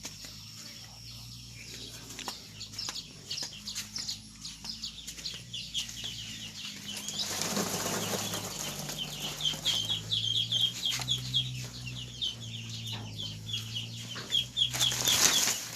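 Chickens in a poultry house making many short, high calls, with two bursts of wing flapping, one about halfway through and one near the end. A low, steady hum runs underneath.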